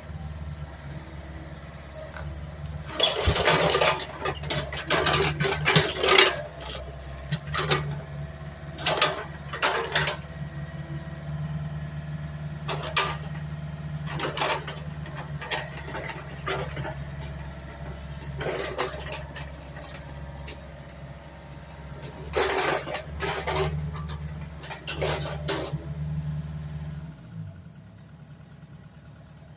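Engine of a homemade Doodlebug skidder built from a 1990 Dodge W250 truck, running steadily under a series of loud rattling, clattering noises, then winding down and shutting off near the end.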